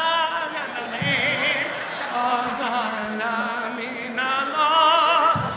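A man singing in a mock operatic style into a stage microphone, with long held, wavering notes, growing louder and higher toward the end.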